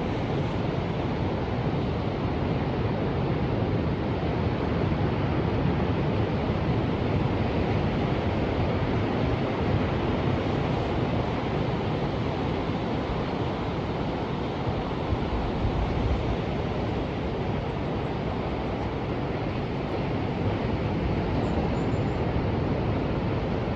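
Ocean surf: a steady wash of waves with a deep rumble, swelling and easing gently over several seconds, with some wind noise on the microphone.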